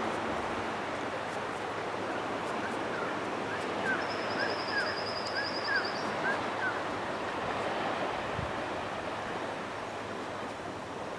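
Gentle surf washing onto a beach, a steady hiss. From about two and a half to seven seconds in, a bird calls a run of short repeated chirps, and a brief high trill sounds in the middle.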